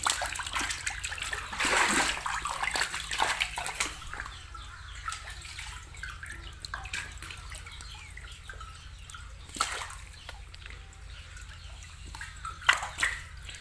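Water splashing and sloshing as a hand grabs at lively snakehead fingerlings in a shallow tank. The splashing is busiest in the first few seconds, then settles to quieter sloshing, with a few sharp splashes later on.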